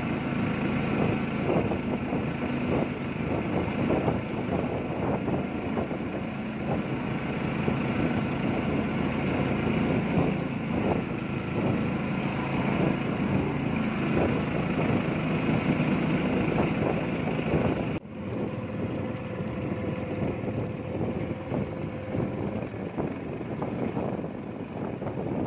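A small boat engine running steadily as the boat moves through the water. About two-thirds of the way through, the sound drops suddenly to a quieter level and keeps running.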